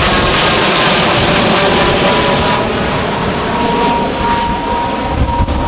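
Boeing 787-9's twin GE GEnx-1B turbofans at climb-out thrust as the airliner passes directly overhead: a loud jet roar with a whine that falls in pitch over the first couple of seconds, then holds steady as the plane moves away.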